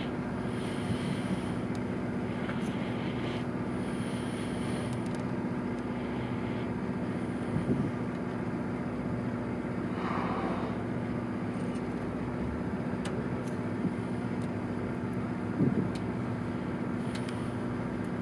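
A boat engine running with a steady low drone, with wind noise on the microphone over it.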